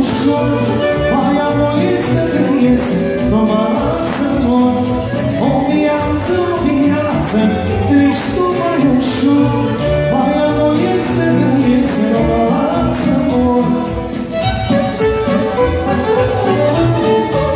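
Live band music with a violin playing the melody over accordion and drums, keeping a steady beat.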